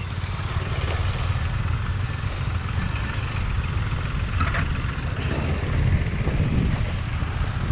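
Single-cylinder KTM Adventure motorcycle engines idling steadily.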